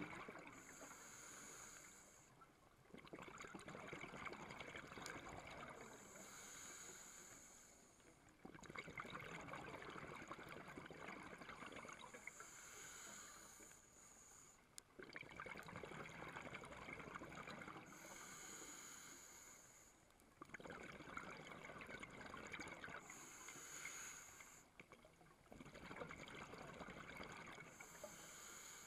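Scuba regulator breathing underwater: a short hiss on each inhale, then a few seconds of bubbling exhaust on each exhale, about one breath every five seconds, six breaths in all.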